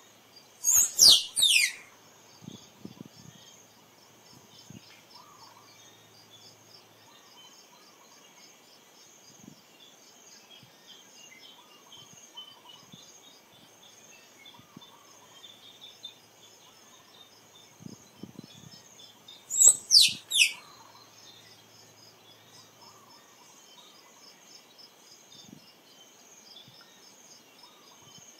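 Squirrel calling twice, each time a quick run of three sharp, high notes that fall steeply in pitch. The two runs come about nineteen seconds apart, over a steady chorus of insects and crickets.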